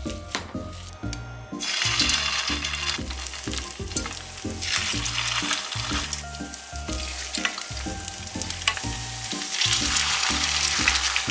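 Tofu and chicken nugget patties sizzling as they shallow-fry in a pan of hot oil. The sizzle sets in about a second and a half in, after a moment of the raw mixture being kneaded by hand. A light background music beat runs underneath.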